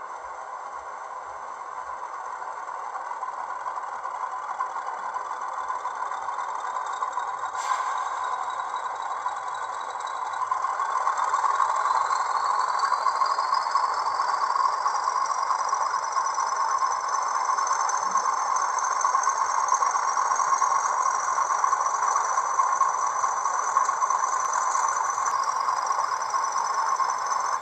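DCC sound decoder in an HO-scale SAR 900 class diesel model, playing its diesel engine sound through the model's small speaker: a steady engine noise that grows louder, with high whines slowly rising in pitch. There is a click about eight seconds in.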